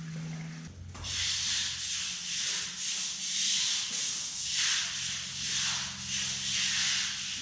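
Stiff-bristle push broom scrubbing a concrete garage floor in repeated back-and-forth strokes, working citric-acid etching solution into the surface. It starts about a second in and cuts off suddenly at the end.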